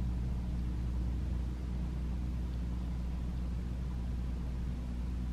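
Steady low droning hum with no change and no other sound standing out.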